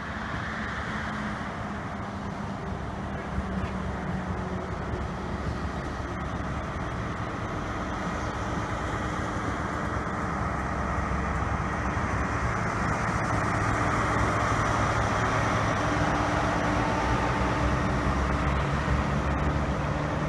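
Diesel InterCity 125 high-speed train pulling slowly out of the station: a steady engine drone with rolling wheel noise, growing gradually louder as the rear power car draws near.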